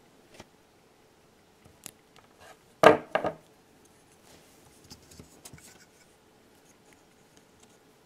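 Small clicks and rubbing of rubber isolation pads being handled and pressed onto the corner of an 80 mm plastic fan frame, with two sharper knocks close together about three seconds in.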